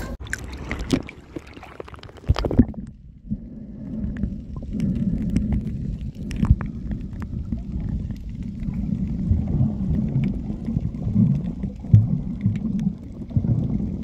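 Muffled underwater sound picked up by a submerged camera: dull, low rumbling and gurgling water movement. The first few seconds carry sharper clicks and splashes before the sound turns dull and bass-heavy, about three seconds in.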